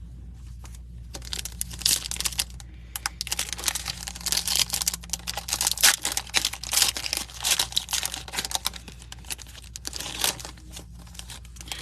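Foil wrapper of a trading-card pack being torn open and crinkled by hand: a dense run of irregular crackles and rustles.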